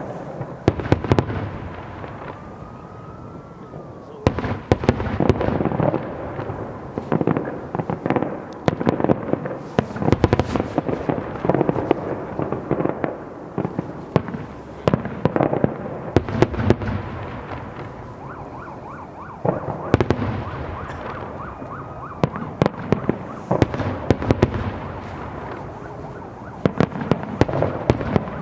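Aerial fireworks display: shells bursting in rapid volleys of sharp bangs and crackling, with booming rumble between them and heavier barrages around ten seconds in, again around sixteen seconds, and through the last few seconds.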